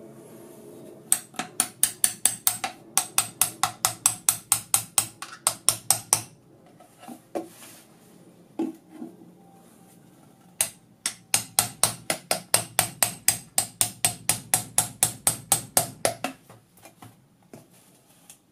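A small hammer taps a chisel-like metal tool into the soldered seam of a metal instrument case, prising it open. The taps are sharp and quick, about five a second, in two runs of about five seconds each, with a few single knocks between.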